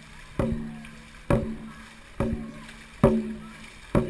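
Dragon boat drum beaten at race pace, one sharp booming stroke about every 0.9 seconds, five in all, setting the paddlers' stroke rate.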